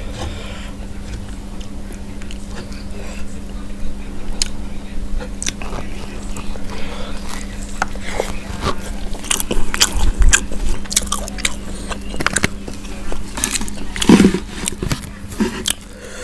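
Close-miked eating of fried chicken: biting and chewing with sharp crunches and wet mouth clicks, coming thicker in the second half, over a steady low hum.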